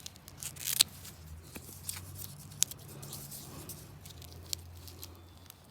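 Velcro strips and a fabric mesh screen being handled and pressed together, with scattered sharp crackles and clicks, the loudest a little under a second in, over a steady low hum.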